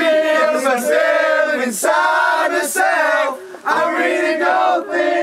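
A group of men singing and chanting loudly together, many voices at once, with a brief break about three and a half seconds in.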